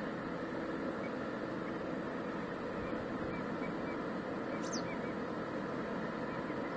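Steady drone of a distant river ship's engine carrying across the water, with faint bird chirps and one quick, high, falling chirp about two-thirds of the way through.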